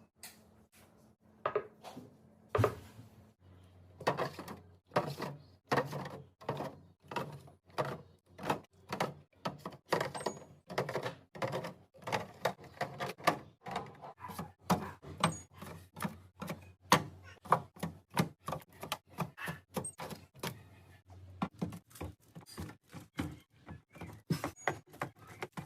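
Quick light clacks and knocks, two or three a second with short pauses, of containers and food items being handled and set down while a refrigerator is stocked.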